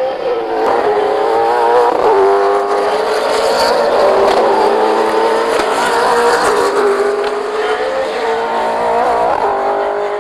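V8 Supercar race cars' 5.0-litre V8 engines running at racing speed, the engine note rising and falling with throttle and gear changes.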